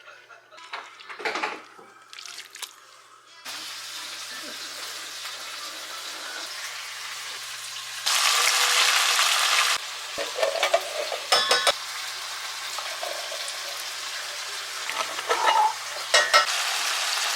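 Food sizzling in a frying pan while a utensil stirs and clinks against it. The sizzle starts a few seconds in and is loudest for a couple of seconds around the middle.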